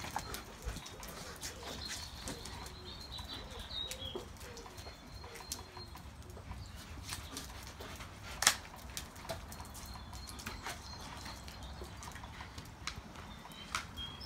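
Two dogs playing on a wet concrete patio: scattered scrapes and clicks of paws and torn cardboard, with one sharp knock about eight and a half seconds in.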